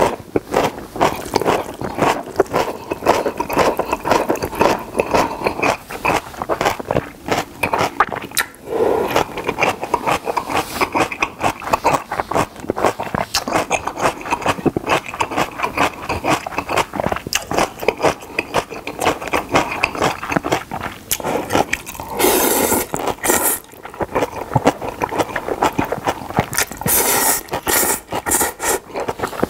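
Close-miked wet chewing and lip-smacking of jjapagetti, instant black-bean-sauce noodles, in a rapid run of sticky clicks. Loud noodle slurps come about two-thirds of the way through and again near the end.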